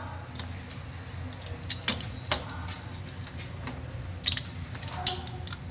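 Metal hand tools clinking and rattling: a handful of sharp metallic clicks, loudest near the end, over a steady low hum.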